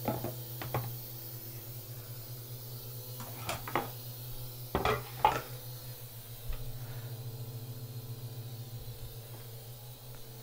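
A utensil and dishes clinking as cooked greens are moved from a glass bowl into a plastic food container: a few short clatters, strongest about five seconds in, over a steady low hum.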